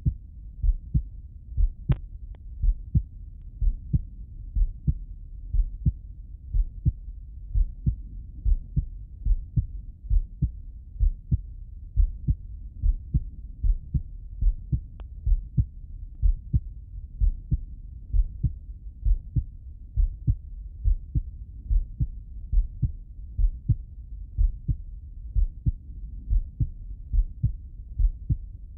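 A man's heartbeat heard through a Littmann stethoscope's bell: a steady rhythm of paired lub-dub thumps, deep and muffled, with faint brief clicks twice.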